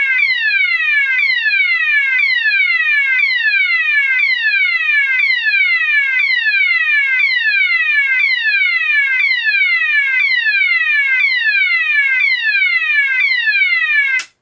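GE AS363 alarm sounder sounding the DIN tone: a loud falling sweep from about 1200 Hz down to 500 Hz, repeated about once a second. It cuts off suddenly near the end.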